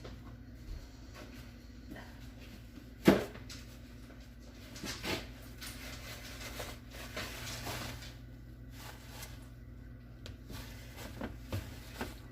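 A kitchen cupboard door knocks shut sharply about three seconds in, then softer rustling and light clicks follow as paper towels are handled.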